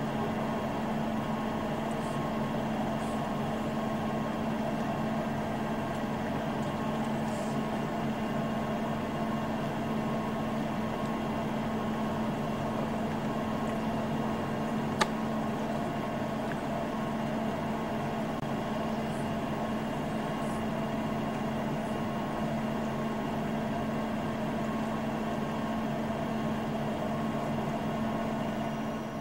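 A steady, unchanging machine-like hum, with a single sharp click about halfway through.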